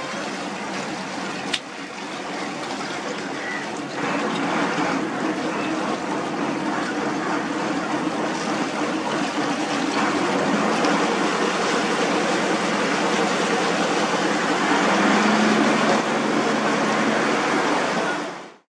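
Waterside outdoor ambience: a steady wash of noise with a faint low hum underneath, changing character at edits about 4, 10 and 16 seconds in. A single sharp click comes about one and a half seconds in, and the sound fades out abruptly at the very end.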